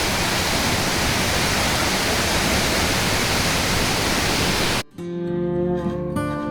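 Steady, dense roar of the Iguazu Falls waterfall, cut off suddenly about five seconds in by acoustic guitar music.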